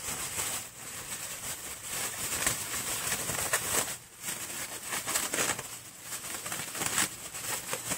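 Thin disposable plastic glove crinkling and rustling as it is handled and pulled on by hand, in uneven swells.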